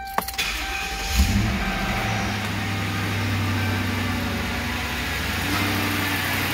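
Ford Crown Victoria Police Interceptor's 4.6-litre overhead-cam V8 starting. It catches quickly with a brief flare about a second in, then settles into a steady idle.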